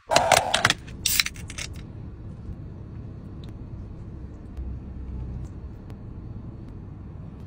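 Crunching bites of crispy fried food, loud and crackly in the first two seconds, followed by faint clicks and handling sounds over a low steady rumble.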